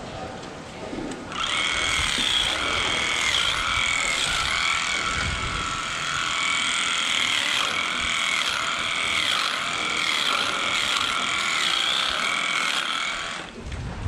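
Electric clippers running while trimming the hair of a cow's tail switch. They switch on about a second in, run steadily with brief dips in pitch as they bite into the hair, and stop just before the end.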